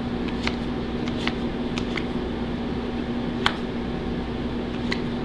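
Baseball trading cards being handled and sorted: a few soft clicks and taps, the sharpest about three and a half seconds in, over a steady background hum.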